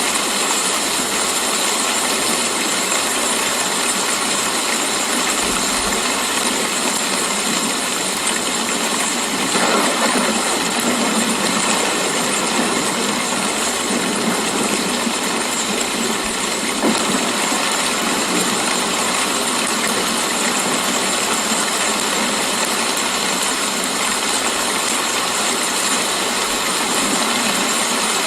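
Steady rain: a loud, even hiss of falling rain with no thunder, swelling slightly about ten seconds in.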